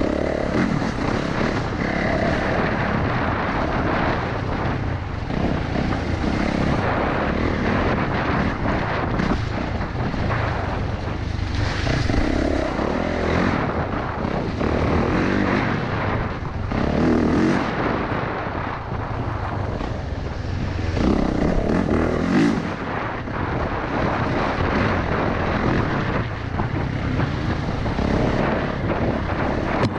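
Dirt bike engine running under way on a woodland trail, its note rising and falling every few seconds as the throttle opens and closes.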